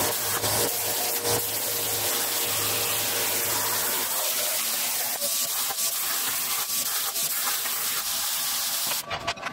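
CNC plasma torch cutting steel plate over a water table: a loud, steady hiss with a low hum under it that stops about four seconds in. The hiss drops sharply near the end.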